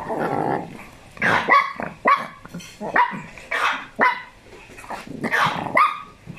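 Small dogs barking and yapping in play, with a low growl at the start followed by a string of short, sharp barks.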